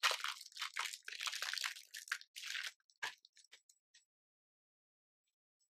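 Clear plastic wrap being torn and peeled off a small cardboard card box, crinkling for nearly three seconds, followed by a single sharp click and a few light ticks as the box is handled.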